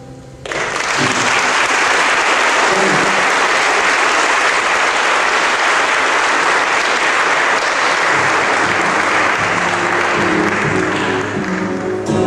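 Audience applauding, starting suddenly about half a second in as the last guitar chord dies away. In the second half, a few acoustic guitar notes sound under the applause as the guitar is retuned.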